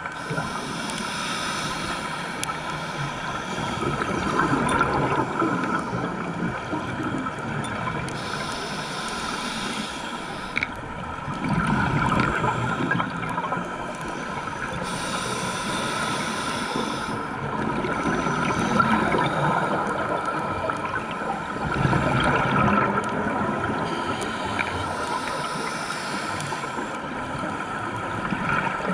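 Scuba diver's regulator breathing heard underwater: a hissing inhalation every several seconds, with rumbling bursts of exhaled bubbles in between.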